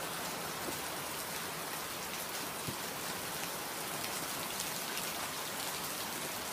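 Steady rain falling on garden foliage: an even hiss with the odd louder drop.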